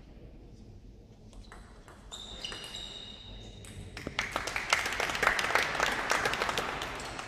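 A short table tennis rally: a few sharp ball strikes and bounces with a ringing ping. About four seconds in, the spectators clap at the point won, and the applause is the loudest part before it fades near the end.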